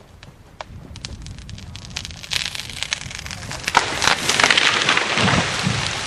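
A tree falling: scattered cracks and snaps build into a dense crackling crash of breaking branches from about two seconds in. It is loudest around four to five seconds, with a couple of low thuds near the end before it dies away.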